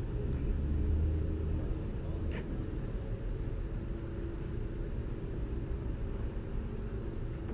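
A steady low rumble of an idling engine, with a few held low tones running through it.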